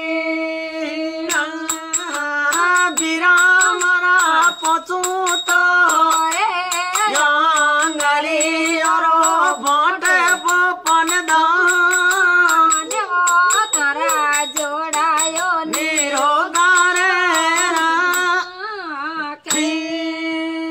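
Marwari folk music: a wavering melodic line over a steady held drone, with frequent short sharp ticks along with it.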